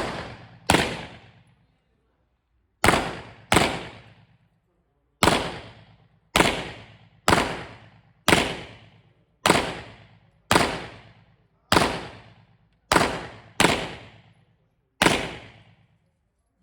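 A string of about fourteen gunshots, fired singly roughly a second apart with some quick pairs, each trailing off in a ringing echo.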